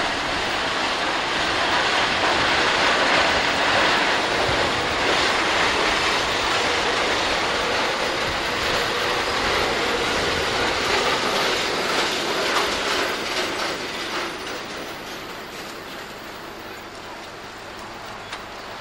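Four-wheel tram with trailers running along street track, its wheels rumbling and clattering on the rails. The sound fades away over the last few seconds.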